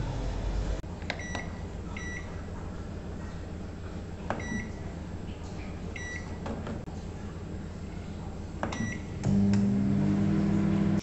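Microwave-grill combination oven being set: short high beeps, mostly in pairs, about five times as the buttons are pressed and the dial turned. About nine seconds in the oven starts with a loud steady hum, and a second tone rises as it gets going.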